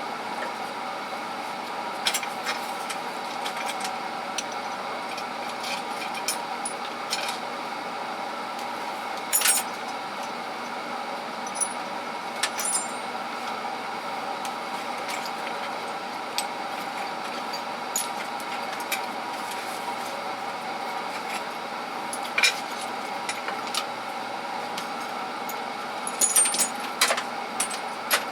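Scattered clinks and clatters of small metal hand tools being picked up and set down, with a cluster of them near the end, over a steady background hum.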